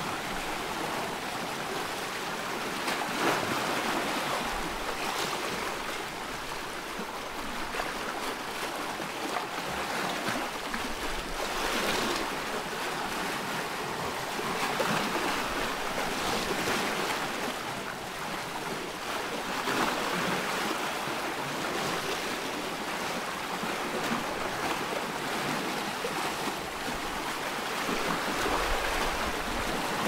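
Sea surf washing on a beach: a steady rush of waves that swells and eases every few seconds.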